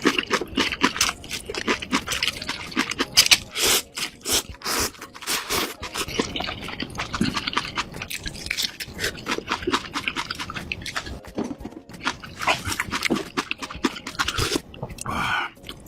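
Close-miked eating: noodles topped with kimchi being slurped and chewed, with a continuous run of wet smacks and slurps.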